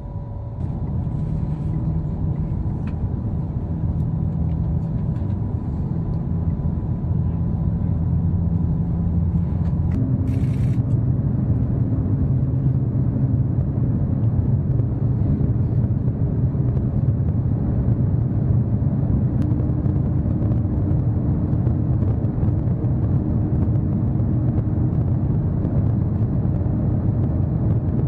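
Cabin noise inside a maglev train accelerating from about 160 to 500 km/h: a steady low rumble that grows louder as the speed builds.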